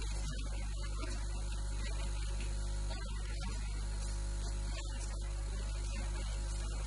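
Steady electrical mains hum with a faint hiss of static.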